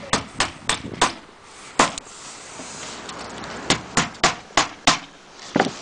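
Hammer driving nails through the edge of an interlocking aluminum roof shingle: four quick blows, a single blow, then a run of five blows about a third of a second apart, and one last blow near the end.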